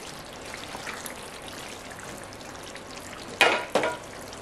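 Chicken curry simmering in a nonstick pan: a soft, steady sizzle with small pops. About three and a half seconds in come two sharp, ringing clinks close together as the pan's glass lid is handled.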